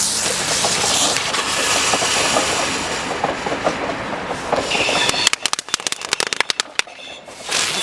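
Lesli Chilli Spinners ground-spinner fireworks hissing as they spin, then about five seconds in a quick run of sharp crackles: the spinners' crackling finale. The hissing starts up again near the end.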